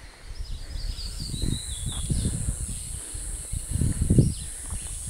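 Birds chirping in short falling notes and a steady high insect buzz coming in about a second in, over irregular low rumbling that is loudest about four seconds in.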